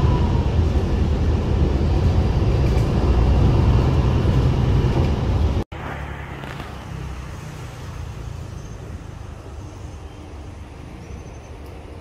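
Interior noise of a moving bus: a loud, steady low engine and road rumble. A little under six seconds in it cuts off abruptly to much quieter outdoor background noise.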